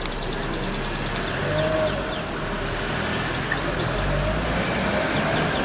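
Steady street noise with a vehicle running, and faint quick high chirps from small birds.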